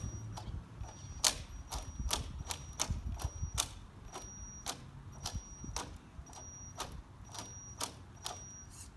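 Axial SCX10 II RC crawler stalled with power applied: its jammed brushed motor and drivetrain click irregularly, two or three times a second, with a thin high electrical whine between the clicks. The motor is burning out, with something jammed in it.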